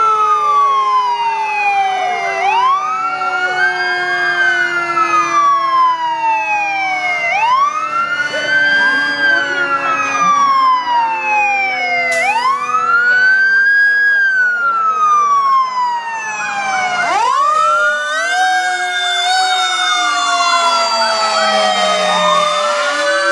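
Several fire truck sirens sounding together in slow wails, each rising and falling about every three to four seconds, over a lower tone that slowly falls in pitch.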